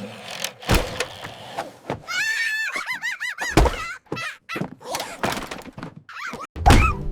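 Cartoon slapstick sound effects: a run of thumps and knocks, with a wavering, warbling high squeal for about a second near the middle and a short rising whistle near the end.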